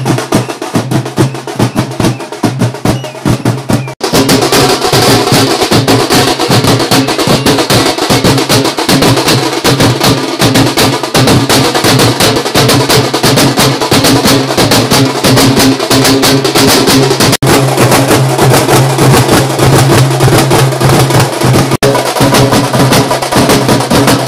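A band of large double-headed stick drums beating a fast, dense rhythm. A steady low tone runs under the drumming from about four seconds in, and the sound breaks off for an instant a few times.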